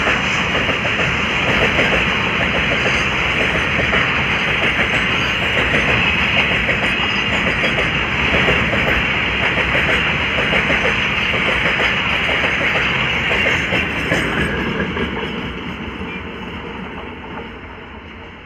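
Loaded container freight wagons rolling past at speed, wheels clattering steadily on the rails. From about two-thirds of the way through, the noise fades away as the tail of the train recedes.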